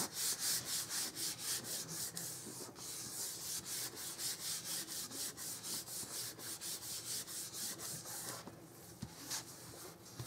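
Rapid, even rubbing strokes on paper and cardstock, about four a second, smoothing a freshly mounted paper layer down; the strokes ease off near the end.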